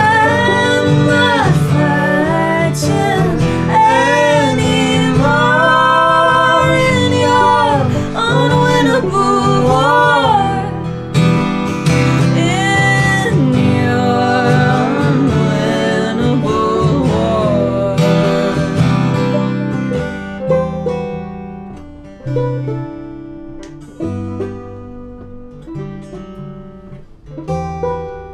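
Live acoustic folk song: singing over strummed acoustic guitar and banjo. About two-thirds of the way through the voices stop and the guitar and banjo carry on more quietly with sparser plucked notes.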